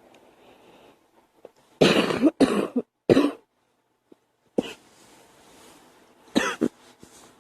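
A girl coughing: a fit of three hard coughs close together, then a single short cough, and near the end two more in quick succession.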